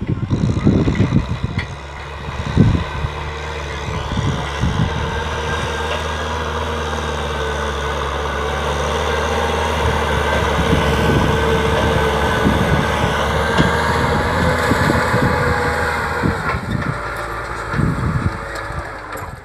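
Kubota tractor's diesel engine running steadily while ploughing a rice field, growing louder as it nears and easing off after about sixteen seconds, with scattered low thumps.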